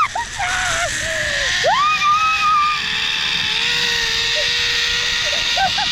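A person screaming twice in long rising cries while setting off down a zip line, over the steady whir of the trolley running along the cable, slowly rising in pitch as it gathers speed.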